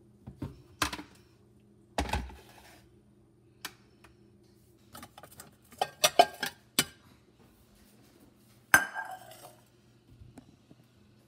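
Ceramic bowls clinking and knocking together as they are lifted off a stack and set down on the counter. There is a thump about two seconds in, a quick run of clinks around the middle, and one loud clatter with a short ring near the end.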